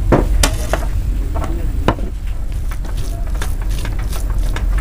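A few sharp clicks and taps of a ceramic bowl against a plate in the first two seconds, then fingers mixing rice with curry on the plate, over a steady low rumble.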